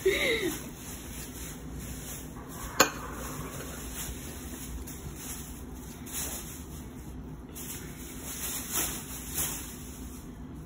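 Faint eating and handling sounds over a low room hum, with one sharp click of a utensil knocking a dish about three seconds in.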